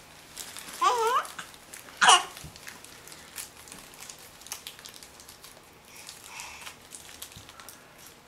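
A small child's two short high-pitched squeals about a second apart, the second one shrill, followed by faint light taps.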